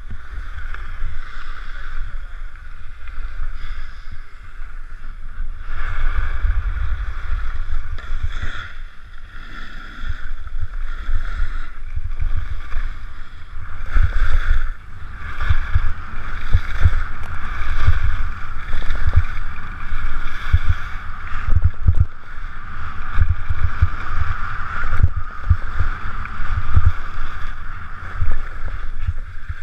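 Wind buffeting an action camera's microphone during a fast ski descent, with skis scraping over packed snow and frequent knocks from bumps in the slope. The loudness rises and falls unevenly.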